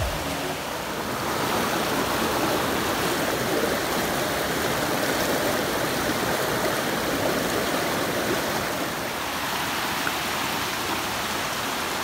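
Rushing whitewater of a rocky mountain stream, a steady wash of water over stones that grows a little louder about a second in and eases slightly near the end.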